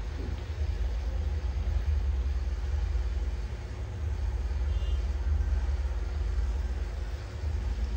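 Gas stove burner running on a medium-high flame, a steady low rumble with a hiss above it, under a pan of milk gravy that is starting to boil.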